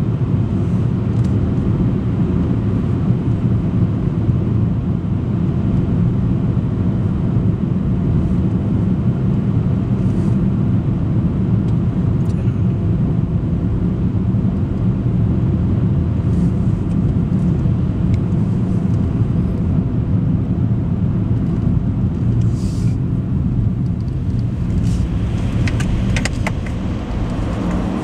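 Steady low rumble of a car driving through a long road tunnel: engine and tyre noise heard from inside the car, with a few faint clicks near the end.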